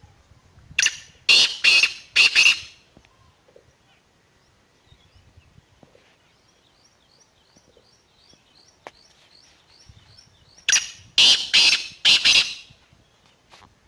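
Black francolin calling twice, each call a quick run of about four loud notes lasting about two seconds, the second call coming about ten seconds after the first.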